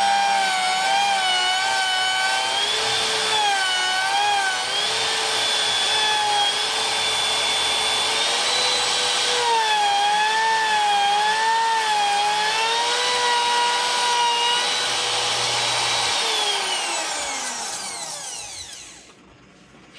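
Electric router running with a high whine that dips and wavers as the bit cuts into the wooden guitar body through a template for a kill-switch cavity. About 16 seconds in it is switched off and its pitch falls as it spins down to a stop.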